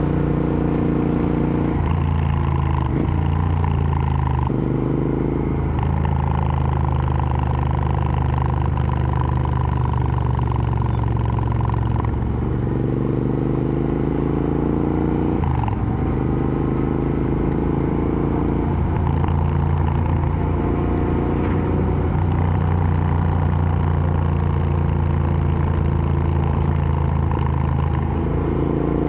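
Royal Enfield Interceptor 650's parallel-twin engine running under way through an aftermarket exhaust, its pitch shifting several times as the rider changes gear and speed, with a brief sharp drop about halfway through.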